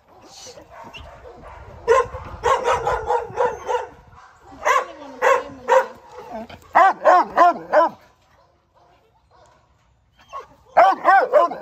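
Chained Rottweiler barking in quick repeated runs at a pitbull on a leash. The barking breaks off for about two seconds past the middle, then starts again near the end.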